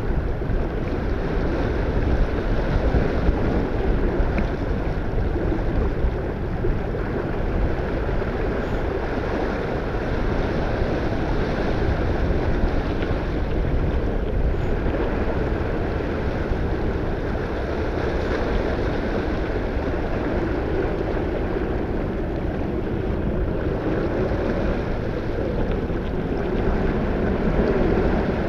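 Wind buffeting the microphone over the steady rush of water along the hull of a sailboat under way downwind.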